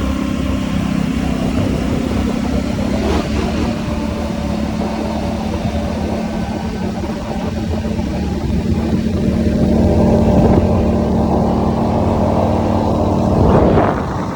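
ATV engine running while riding, a steady engine note that gets a little louder about ten seconds in, with a short noisy surge near the end.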